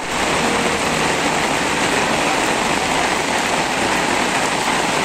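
Heavy rain pouring down, a loud steady rush.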